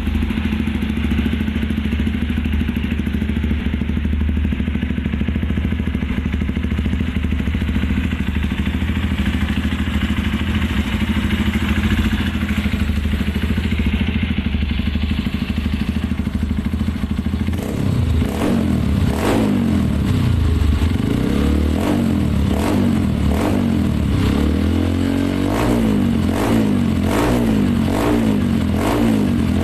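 Honda dirt bike engine idling steadily through an aftermarket BYS47 racing muffler. A little past halfway it starts being revved in quick repeated blips, about one a second, each rising and falling in pitch.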